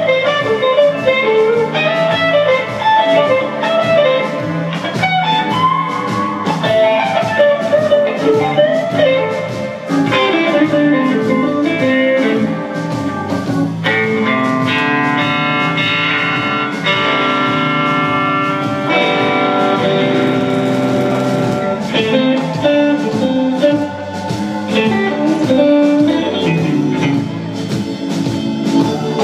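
Live blues band: electric guitar soloing over bass, drums and Hammond B-3 organ. About halfway through, the playing settles into a stretch of long held notes before the quicker melodic runs return.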